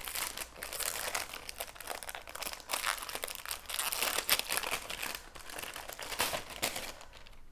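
Wrapping crinkling and rustling as a small gift, a notebook, is unwrapped by hand, dense crackling that stops shortly before the end.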